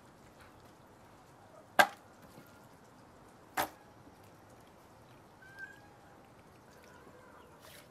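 Two sharp knocks, about two seconds apart, then a much fainter one.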